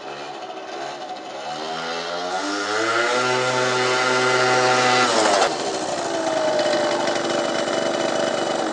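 Peugeot Speedfight 50cc liquid-cooled two-stroke scooter engine accelerating with a rising pitch and held at high revs. About five seconds in the revs drop sharply, and the engine runs on with a falling tone.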